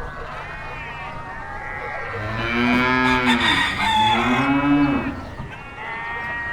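Cows mooing: two long moos in the middle, each arching up and falling, over higher-pitched animal calls.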